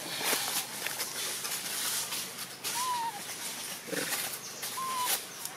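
Newborn long-tailed macaque giving two short, thin coo calls, each rising and falling, about two seconds apart, over light clicks and rustling in dry leaves.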